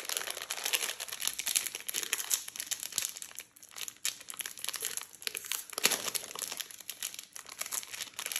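Lotte Choco Pie's plastic wrapper crinkling and crackling as fingers twist and pull at it to open it. It goes on without a break, with a short lull about three and a half seconds in and a louder crackle near six seconds.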